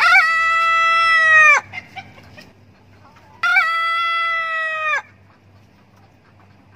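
Rooster crowing: two long, loud crows about two seconds apart, each held on one pitch and dropping off at the end.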